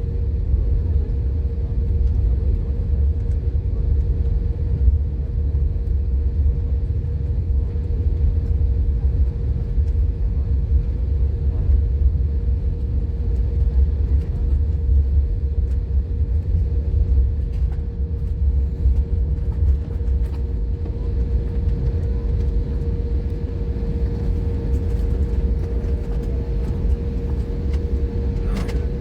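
Airliner engines heard from inside the cabin during takeoff: a loud, steady low rumble with a constant hum over it.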